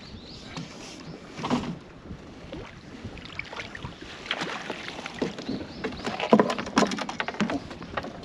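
Hooked black sea bream being landed: irregular splashing, knocks and taps that grow busier and louder in the second half.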